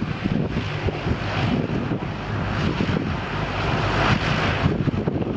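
Antonov An-225 Mriya's six D-18T turbofan engines running as the giant aircraft taxis and turns, a steady low rumble with hiss, swelling a little about four seconds in. Wind buffets the microphone.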